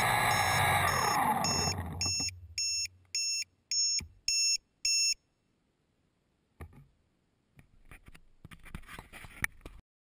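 DJI Flame Wheel F450 quadcopter's brushless motors and 8-inch propellers winding down after landing, a falling whine that dies away about two seconds in. Then six short high electronic beeps, about two a second, and a few faint taps and rustles near the end.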